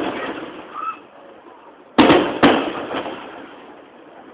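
Aerial firework shells bursting: two sharp bangs about half a second apart, about two seconds in, each fading out in a long rolling echo. The tail of an earlier burst dies away at the start.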